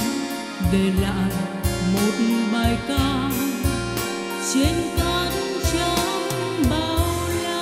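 Song accompaniment playing an instrumental passage: a lead melody line over a steady beat and bass.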